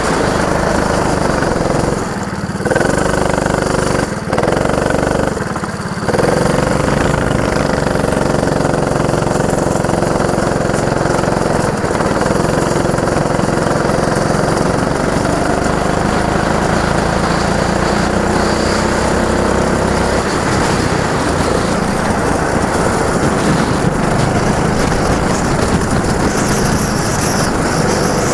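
Go-kart engine running hard around the track, its pitch rising and falling with the throttle, with brief drops in level about two seconds and five seconds in as the throttle comes off.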